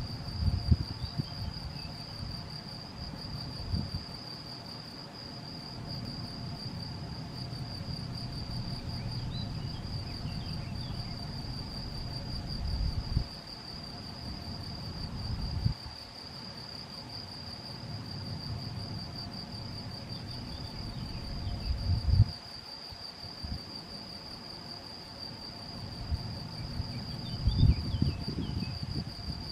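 Male field cricket (Gryllus campestris) singing steadily: a high, evenly pulsing calling song that does not break. Underneath is a low rumble that swells and drops several times with a few louder bumps.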